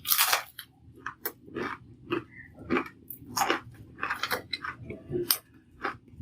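Crisp, freshly fried Malabar spinach fritters (pui shaker bora) crunching and crackling in a run of short, irregular crunches, about two a second, the loudest at the very start. The crunch is a sign of how crisp they are.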